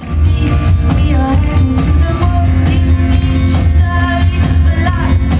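Pop band playing live, heard from the audience: a woman singing over piano, with a heavy, steady bass.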